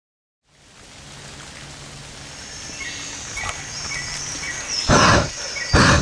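Jungle ambience fading in from silence about half a second in: a steady hiss with repeated short, high bird-like calls. Two loud noisy bursts come near the end.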